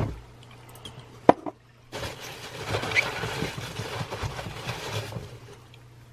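Gloved hands rummaging through foam packing peanuts in a cardboard box, a dense rustling that lasts about three seconds. Just before it comes a single sharp knock.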